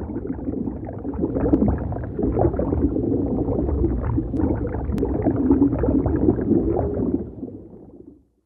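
Underwater bubbling: a muffled, continuous stream of bubbles gurgling over a low rumble, fading out about seven seconds in.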